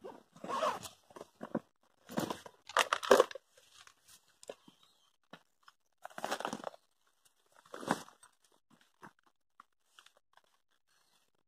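A rucksack being rummaged through: several short bursts of rustling, scraping and tearing-like zip noise, the loudest about three seconds in, then only scattered small clicks and knocks.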